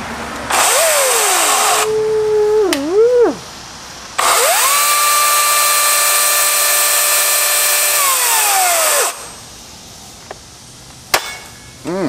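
Atlas 80-volt brushless battery chainsaw revved with no load: a short trigger pull whose whine rises and wavers, then a longer run that spins up to a steady high whine for about four seconds and winds down as the trigger is released. A brief click and a short blip of the motor come near the end.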